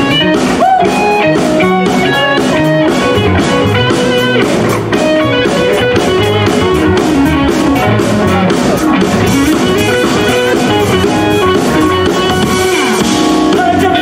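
Live band playing: electric guitars over a steady drum kit beat, loud and amplified.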